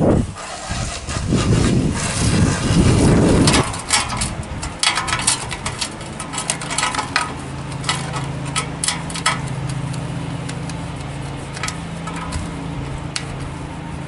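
A loud low rushing noise that cuts off about three and a half seconds in. Then scattered clicks and rubbing as a towel is worked over the metal housing and bracket of a condenser fan motor, over a steady low engine-like hum.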